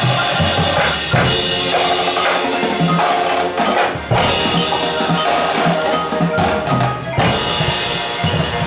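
High school marching band playing, percussion to the fore: struck mallet instruments and sustained pitched notes over drums. The low drum hits thin out about a second in and come back strongly about seven seconds in.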